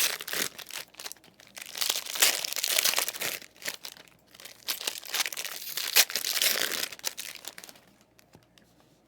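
Plastic wrapping on trading-card packs or boxes crinkling and tearing as it is ripped open, in three long bursts.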